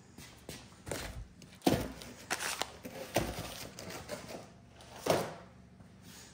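Handling noise from assembly work: a series of knocks, thuds and rattles as parts and a box of hardware are moved around, with two louder thuds, one near two seconds in and one about five seconds in.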